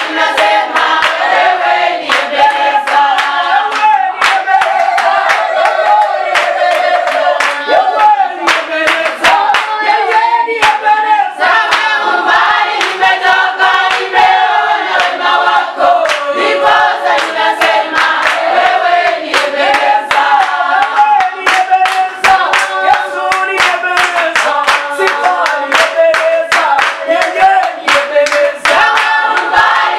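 A church congregation singing a Swahili praise and worship song together a cappella, with steady rhythmic hand clapping to the beat, about two to three claps a second.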